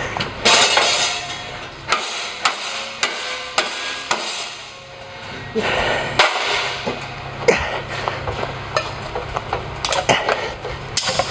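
Galvanized sheet-steel T-joint being bent back and forth by hand in a bench vise. Irregular metallic clanks, knocks and scrapes come as the plate is worked to break-test its laser-welded fillet weld.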